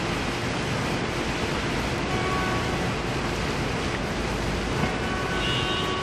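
Steady rain over a city: an even rushing hiss with a low rumble beneath it. Near the end, faint steady tones rise out of the noise.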